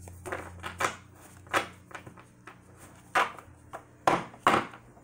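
Tarot cards being handled and set down: a string of light, irregular taps and clicks, the loudest coming near the end.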